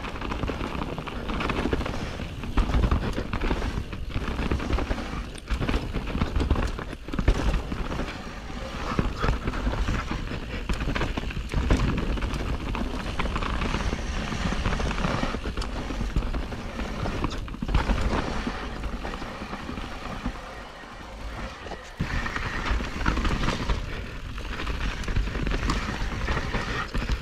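Mountain bike descending a rough trail: tyres rolling over dirt and rocks, with the bike knocking and rattling over bumps. Wind buffets the microphone.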